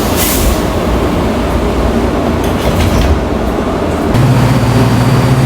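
Washington Metrorail car doors sliding shut with a short rush of air and a thud at the start, then the steady rumble inside the railcar with a few faint clicks. About four seconds in a steady low hum sets in and the sound gets a little louder.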